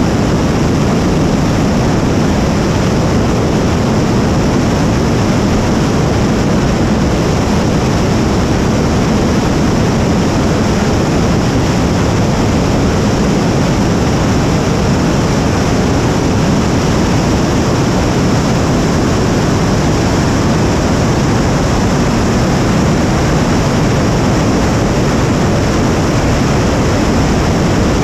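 A 75-tonne-class kerosene and liquid-oxygen rocket engine firing in a static combustion test: a loud, steady, unbroken rumble, strongest in the low end, that holds the same level throughout.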